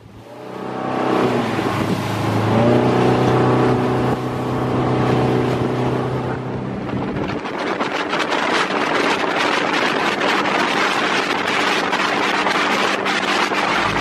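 Motorboat engine running under way, its pitch rising a couple of times in the first few seconds as it speeds up. About halfway through, the engine tone drops away under a rushing, buffeting noise of wind on the microphone and water at speed.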